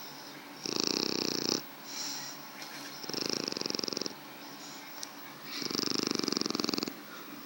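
Shar-pei dog snoring in its sleep: three fluttering snores about a second long each, coming roughly every two and a half seconds.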